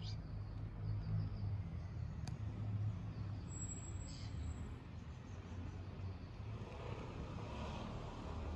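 Low, steady outdoor background rumble with a few faint short clicks.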